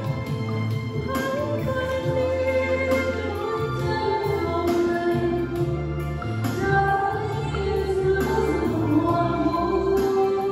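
A song: a voice singing a melody over instrumental accompaniment with a steady bass line.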